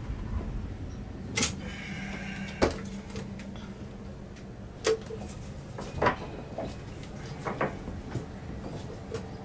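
Sharp plastic and metal clicks and knocks, about half a dozen spread out, as a caulking gun is handled and loaded with a sealant cartridge. A steady low hum runs underneath.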